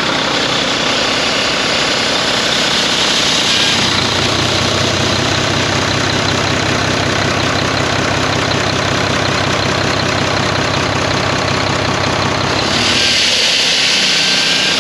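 Volvo D13 diesel engine idling, with a loud windy, breezy rush of air coming from where a seal is missing. The airy hiss is strongest in the first few seconds and again near the end, and the low engine note is heavier in between.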